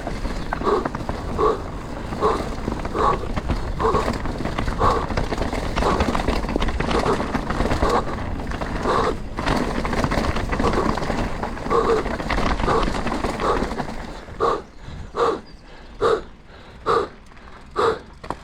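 A mountain-bike rider breathing hard in a steady rhythm, about one breath every 0.8 s, over the rattle, tyre and wind noise of a Canyon Spectral 125 full-suspension mountain bike on a rough trail. About 14 s in, the riding noise falls away and the panting carries on alone.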